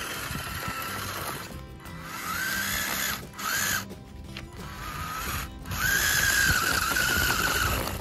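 The electric drive motor and gearbox of a remote-control model HMT 5911 tractor whining as it pulls a trolley full of soil. The pitch glides up as it speeds up, and it cuts out several times; it is loudest in the last two seconds.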